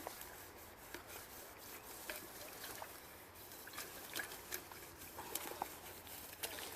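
Faint trickle of water with many small irregular clicks and taps.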